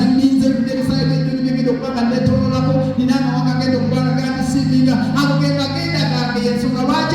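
Live church worship music: singing over held instrumental bass notes with a steady beat.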